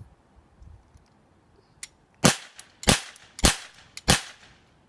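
Toy cap gun firing four shots in quick succession, about two-thirds of a second apart, with a faint click just before the first.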